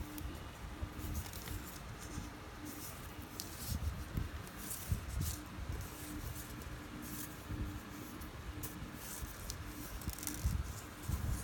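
Faint handling noise of fingers working and pulling a fishing line knot tight: brief soft rustles and ticks of the line, with scattered soft low bumps and a faint hum that comes and goes.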